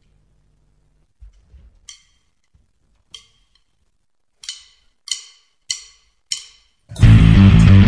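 Drumsticks clicked together: a few scattered clicks, then four evenly spaced clicks a little over half a second apart, like a count-in. Near the end, loud rock music with heavy bass guitar comes in.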